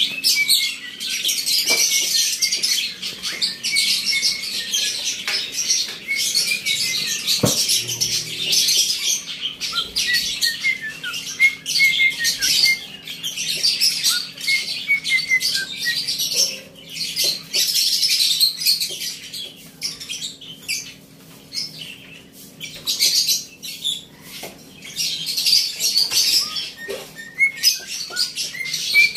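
Many caged lovebirds and cockatiels chirping and chattering without a break, with one sharp knock about seven seconds in.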